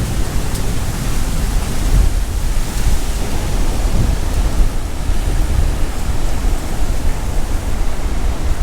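Gusty storm wind buffeting the microphone, a heavy low rush that swells and eases unevenly, over the steady wash of storm surf.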